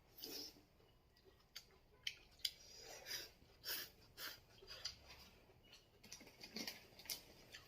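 Faint eating sounds at a table: scattered small clicks and soft crunches, a few each second, with nothing steady underneath.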